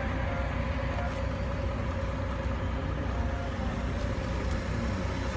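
Mobile crane truck's engine running steadily while it holds a suspended load, a low rumble with a steady whine over it.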